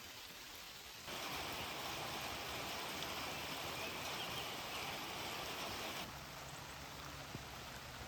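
Steady rain falling, an even hiss that gets louder about a second in and drops back again about six seconds in.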